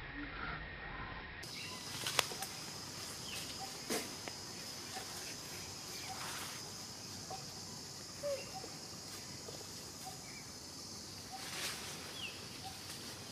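Outdoor ambience: a steady high-pitched hiss with scattered faint clicks and short chirps.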